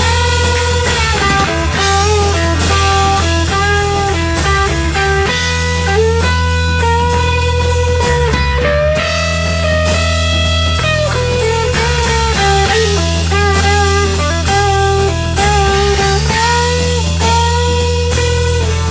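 A rock band playing: electric guitar melody lines with bent, held notes over steady low bass notes and a drum kit keeping time.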